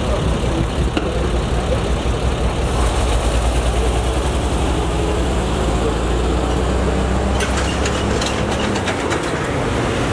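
Road traffic at an intersection: a vehicle engine idling with a steady low hum that stops about eight and a half seconds in. Near the end comes a run of light clicks and rattles.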